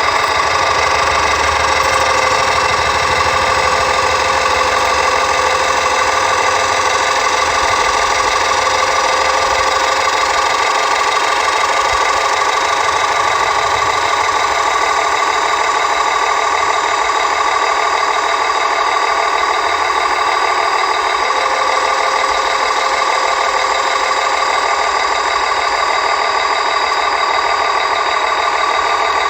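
Remote-control toy dump truck's built-in engine sound effect, a steady idling drone played through a small speaker.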